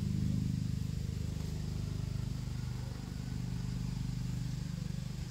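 A small engine running steadily at a low, even pitch, easing off slightly around three seconds in.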